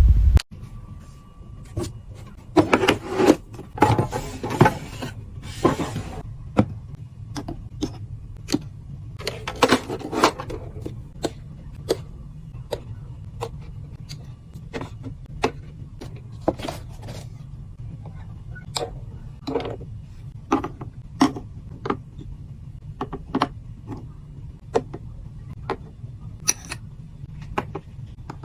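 Objects being handled and set down: a string of sharp taps and clicks, with rustling or scraping in bursts a few seconds in and again around ten seconds in, over a steady low hum.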